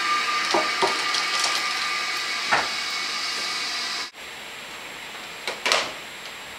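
Steady background hiss with a few light keyboard clicks. About four seconds in it cuts abruptly to a quieter room with a faint high whine and two sharp clicks near the end.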